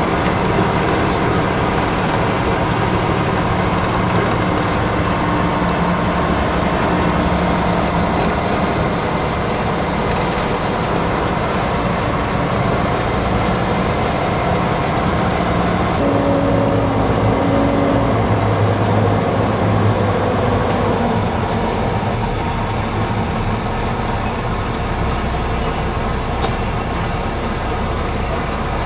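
Loaded semi truck's diesel engine running steadily while driving. The engine note shifts about halfway through.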